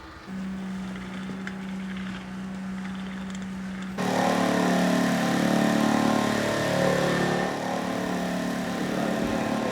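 Engine running steadily with a low hum; about four seconds in it changes abruptly to a louder, rougher engine sound.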